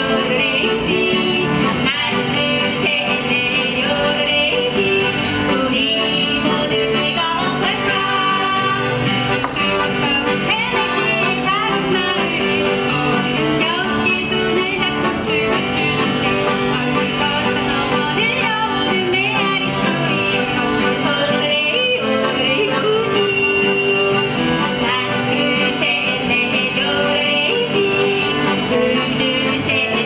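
Two women singing a yodel polka in Korean, with yodeled passages, accompanied by a strummed acoustic guitar and a piano accordion.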